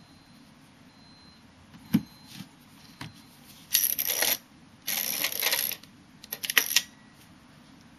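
Metal parts of a vintage Hasselblad 1000F camera being handled: a sharp click, then two scraping metal slides of most of a second each, then a short rattle of small clicks, as the prism finder comes off the body.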